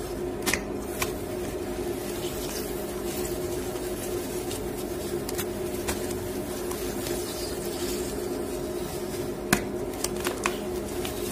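A block of gym chalk being crushed and crumbled by hand into a bowl of water, giving scattered crunches and sharp snaps, the loudest about nine and a half seconds in. Underneath is the steady low hum of a washing machine.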